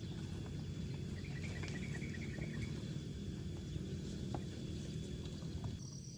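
Outdoor forest ambience: a steady low rumble with scattered small ticks, and insects chirping. A short run of rapid chirps comes about a second in, and near the end the background changes to a steady pulsed high cricket chirping.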